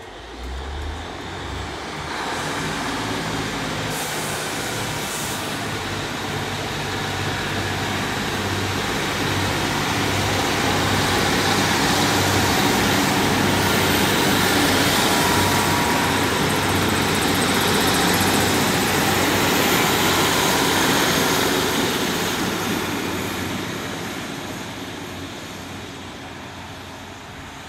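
A Class 150 Sprinter diesel multiple unit pulls away: its underfloor diesel engines run under power as it accelerates, and the wheels rumble on the rails. It grows louder as it passes close by, then fades as it draws away.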